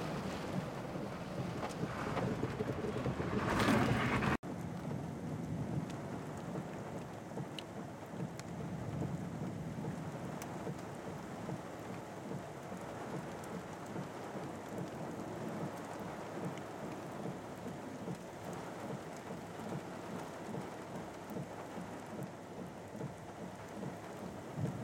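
Rain and storm noise heard from inside a vehicle: a steady hiss and low rumble, louder and building over the first four seconds, then breaking off abruptly and resuming quieter and even.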